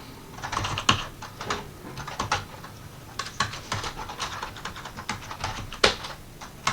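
Typing on a computer keyboard: irregular key clicks in quick runs, with a louder keystroke near the end.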